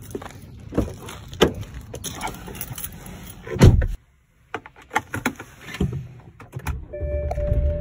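Door handle clicks and a car door being opened on a BMW E90 3 Series sedan, then the door shut with a heavy thump about three and a half seconds in. After a few more clicks inside the cabin, a steady low rumble and a steady tone start near the end as the car's N52 inline-six engine starts.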